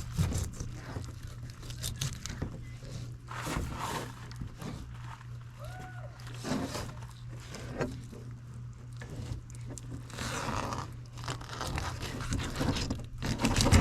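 Fillet knife cutting into a fish, with irregular crunching and scraping strokes as it cuts through bone to take off the wings, over a steady low hum.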